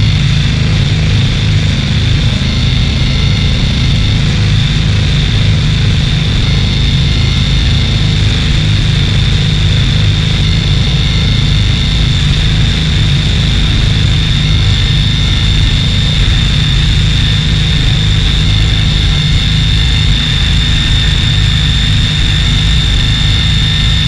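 Experimental soundscape: a loud, dense, machine-like drone with a heavy low rumble and a thin high tone held steadily over it, unchanging throughout.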